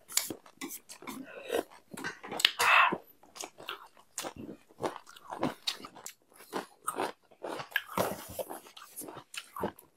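Close-miked eating sounds: people chewing and crunching mouthfuls of food, a quick irregular run of wet mouth clicks and crackles, loudest about two and a half seconds in.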